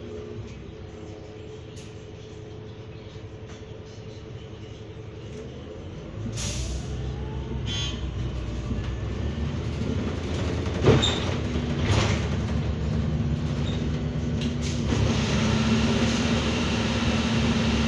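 Inside a Heuliez GX327 Hybrid city bus: a steady hum while it stands at a light, then about six seconds in it pulls away, and the drivetrain's whine rises in pitch as the bus gathers speed. A short hiss of air comes as it sets off, and a sharp knock about eleven seconds in.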